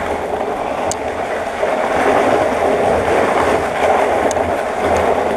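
A trash can dragged across a concrete floor, a steady scraping rumble that stops just after the end.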